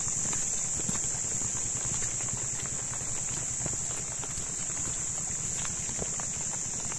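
Steady high-pitched drone of insects, unbroken throughout, over a low rumble with scattered faint ticks.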